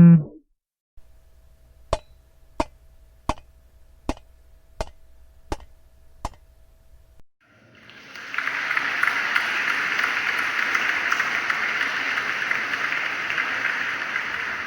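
Wood being chopped with an axe: seven sharp strikes at an even pace, about 0.7 s apart. Then, about halfway through, a crowd applauding steadily, easing off slightly near the end.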